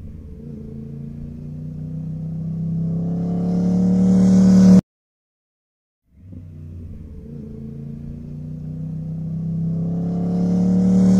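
Motorcycle engine running at a steady low pitch, growing steadily louder over about five seconds and then cutting off abruptly. After about a second of silence, the same swelling engine sound comes again and cuts off the same way.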